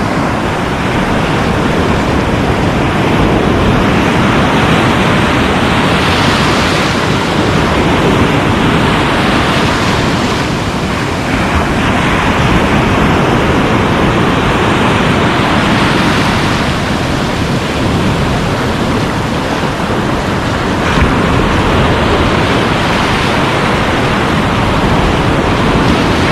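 Sea surf breaking and washing on the shore, with wind on the microphone: a loud, steady rush that swells and eases every few seconds.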